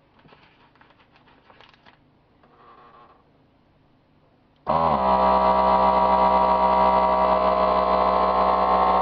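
Faint handling sounds, then a little over halfway through a FoodSaver vacuum sealer's pump motor starts suddenly and runs steadily, a loud hum with a whine, drawing the air out of a bag of meatloaf slices.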